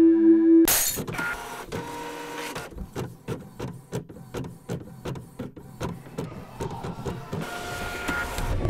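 Ricoh office printer running a print job: the mechanism runs with a quick regular series of clicks, about three a second, then a busier stretch near the end as the sheet comes out.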